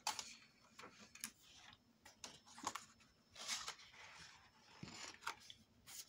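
Faint rustling and sliding of a sheet of card being lifted, turned over and laid back on a paper trimmer, with scattered light taps and clicks and a few brief swishes.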